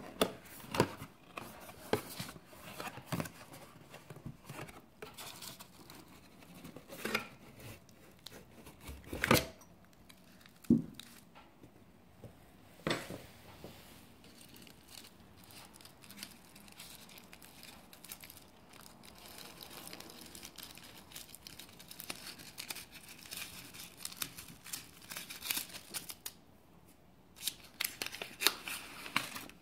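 Unboxing handling noises: a cardboard liquor box is opened and the bottle's red cloth wrapping is rustled and pulled at. Irregular sharp knocks and taps run throughout, with a stretch of steadier rustling in the middle.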